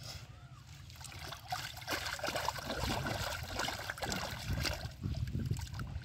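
Hands groping through mud and shallow water, with irregular sloshing, splashing and squelching that grows louder about a second and a half in.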